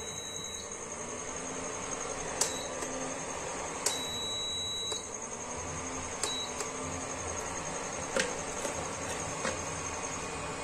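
Prestige PIC 16.0+ induction cooktop's touch panel beeping as its power and Sauté buttons are pressed: a long beep at the start, another about four seconds in, and a few short beeps and clicks, over a steady high-pitched whine. The unit powers on but does not start heating.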